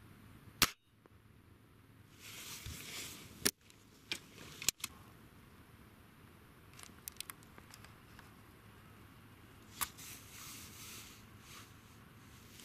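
A single sharp air rifle shot about half a second in. It is followed by several softer clicks and two stretches of rustling handling noise.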